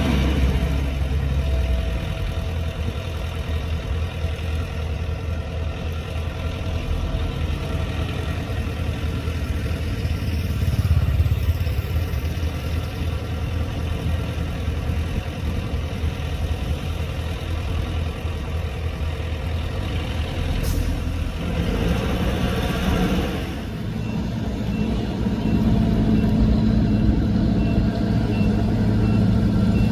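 Heavy diesel engines of a dump truck and bulldozer running and working, a continuous low rumble whose pitch shifts a little past the middle. A faint reversing alarm beeps about once a second near the end.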